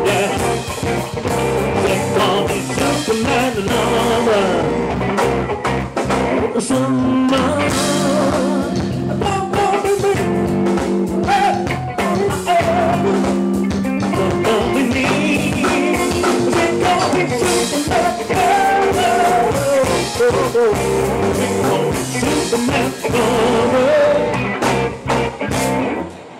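Funk band playing live: drums, bass and electric guitar, with a singing melody line bending over the groove.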